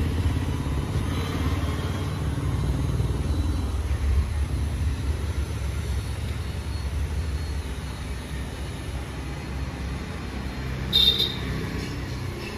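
Street traffic: motor scooters and cars passing with a steady low engine rumble that slowly fades. A brief, sharp, high-pitched sound about eleven seconds in.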